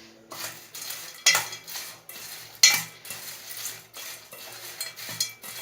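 A spoon clinking and scraping against a bowl in irregular strokes as fried potato fingers are tossed to coat them in salt and spice powders, with two louder clanks about a second and nearly three seconds in.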